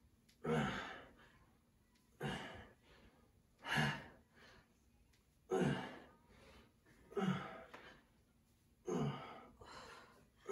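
Forceful exhalations in a steady rhythm, one with each kettlebell swing, about six in all, roughly every second and a half, with quieter breaths drawn in between.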